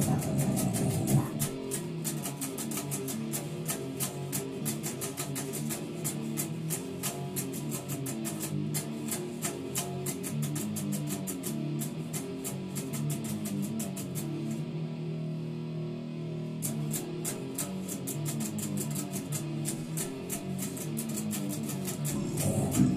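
Electric guitar riff played with fast, even picking through an amplifier. About two thirds of the way through, the quick picking stops for about two seconds while notes ring on, then resumes.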